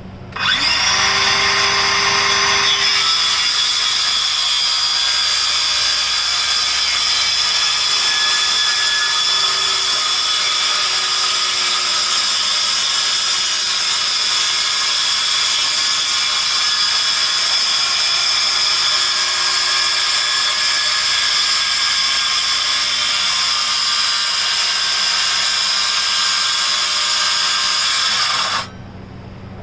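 Cordless power saw spinning up and cutting through wood: a steady high whine over the cutting noise that runs for about 28 seconds and stops suddenly near the end.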